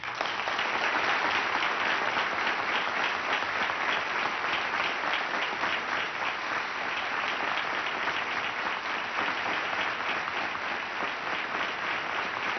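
An audience applauding: dense, steady clapping from many hands that breaks out suddenly and keeps going at an even level.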